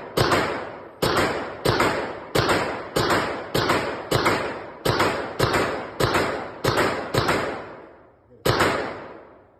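Glock 29 Gen 5 10mm pistol firing shot after shot at a steady pace, about thirteen shots roughly two-thirds of a second apart, each ringing on in the enclosed range booth, with a longer pause before the last shot near the end.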